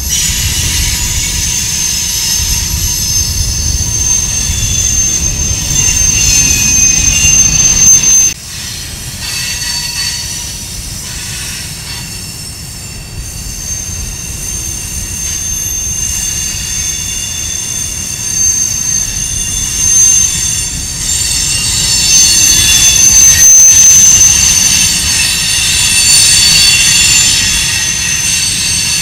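Empty covered hopper cars of a freight train rolling past, the wheels squealing in several steady high tones over a low rumble of steel wheels on rail. The sound drops abruptly about eight seconds in, then builds back up.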